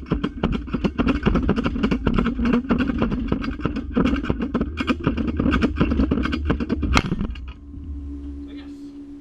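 Ratchet strap being cranked, its ratchet clicking rapidly as it tightens the bolt cutter handles onto a padlock shackle. The clicking stops about seven seconds in, leaving a low steady hum.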